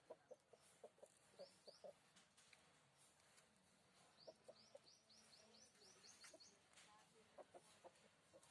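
Chickens clucking softly in short runs, with a quick series of high rising chirps from a small bird in the middle.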